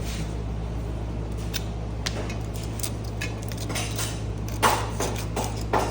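Metal scraper chipping and scraping hardened old grease off a steel truck frame: a string of irregular sharp scrapes and clinks, the loudest about two-thirds of the way in. The grease is caked on hard, like concrete.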